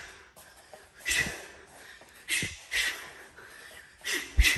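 Short, sharp exhales pushed out through the mouth with each punch: five quick breaths, a single one, then two pairs in fast combinations.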